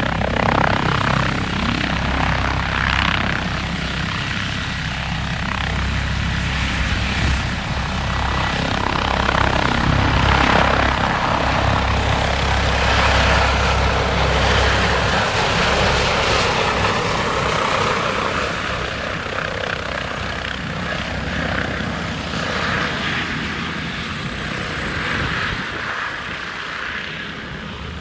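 Airbus MBB-BK 117 D-3 (EC145) twin-turbine helicopter hovering low and moving slowly at low height, with a steady rotor and turbine noise. The noise grows a little fainter over the last several seconds as the helicopter moves farther off.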